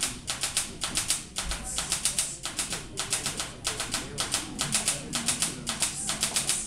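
Live experimental electronic music: a fast, slightly uneven rhythm of short, hissy ticks, about five or six a second, like a shaker or hi-hat pattern, over faint low notes.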